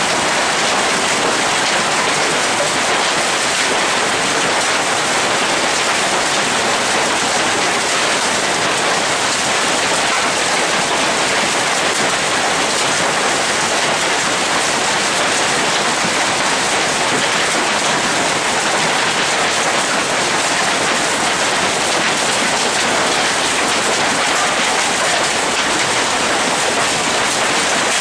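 Hailstorm with heavy rain: countless hailstones and raindrops pelting the surroundings in a dense, unbroken hiss that holds steady throughout.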